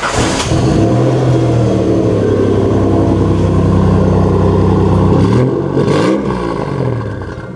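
A car engine revved up and held at high revs for about four seconds, then dropping, revving again briefly and falling away.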